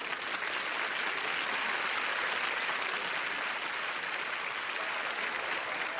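Large studio audience applauding, a steady even clapping that holds for the whole stretch.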